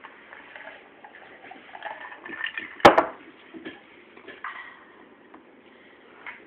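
Faint room noise with a single sharp click about three seconds in.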